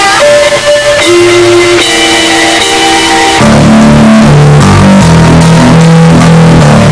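Intro music led by guitar, with a heavier bass line coming in about three and a half seconds in.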